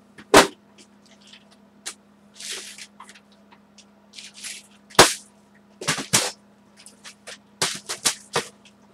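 Craft supplies being handled on a table: irregular sharp clicks and knocks of small hard objects set down and moved, with a couple of brief rustles. The loudest knocks come about half a second in and about five seconds in.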